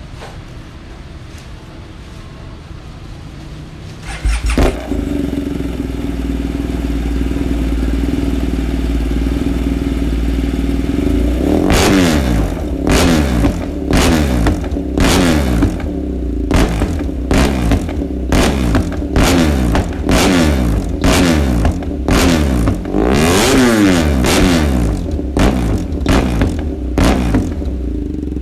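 An engine starts about four seconds in and runs steadily, then from about twelve seconds on is revved again and again in quick blips.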